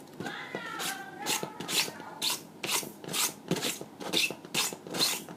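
Kinetic sand being rubbed and scraped as it is shaped, a short gritty scraping stroke about twice a second.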